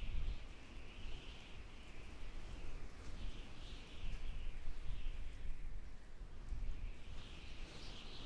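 Outdoor ambience: wind rumbling on the microphone, with small birds chirping again and again in short high phrases.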